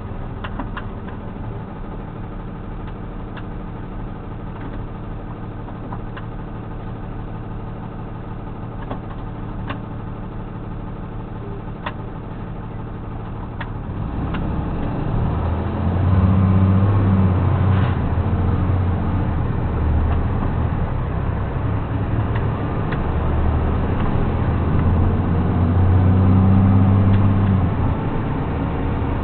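A motor vehicle's engine running steadily at low revs. From about fourteen seconds in it gets louder and pulls under load in surges, as when the vehicle accelerates through its gears.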